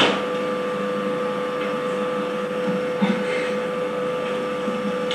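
A steady electrical-sounding hum with a constant tone and an even hiss, opening with a sharp click.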